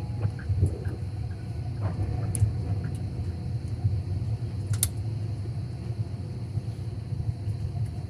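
Airliner cabin noise on approach to landing: a steady low rumble of engines and airflow heard inside the cabin by the window, with two faint clicks about two and a half and five seconds in.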